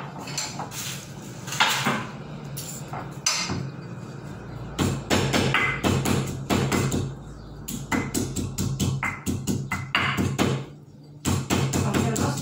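A pestle pounding in a mortar: a few scattered knocks at first, then a steady run of sharp knocks, about three a second, with a short pause near the end.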